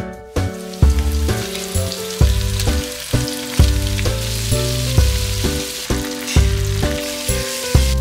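Chicken pieces frying in hot oil in a wok, a steady sizzle that starts about half a second in, under background music with a steady beat.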